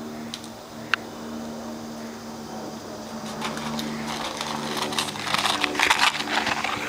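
A single sharp click about a second in. From about the middle come quick running footsteps and rustling that grow louder as a boy runs up close past the microphone. A steady low hum runs underneath.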